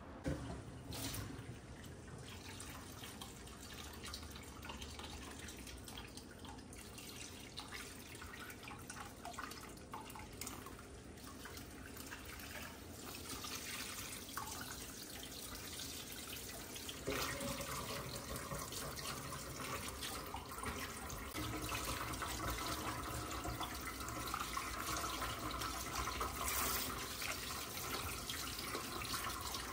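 Water running from a kitchen faucet through a hose attachment and splashing into a shallow sink bath. The flow gets louder about halfway through.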